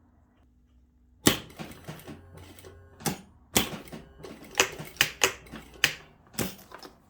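A string of about ten sharp, irregular clicks and knocks, with lighter rattling between them, from hard parts and tools being handled while work is done on a heavy-duty zip.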